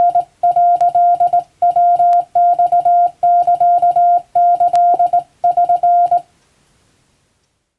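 Japanese (wabun) Morse code sent by hand as a single steady beeping tone, keyed on and off in dots and dashes with short gaps between characters. It stops about six seconds in.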